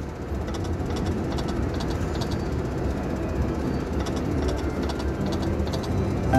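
Steady casino-floor din: a low rumble of machines and crowd noise, with faint scattered clicks as the slot machine's reels spin through free games.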